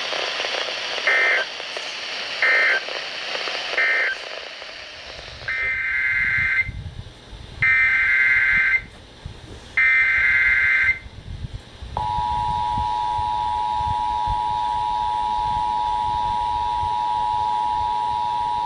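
Emergency Alert System data bursts: three short warbling two-tone bursts that end the previous warning, then three longer bursts of about a second each that carry the next alert's header. About twelve seconds in, the steady two-tone EAS attention signal starts and holds.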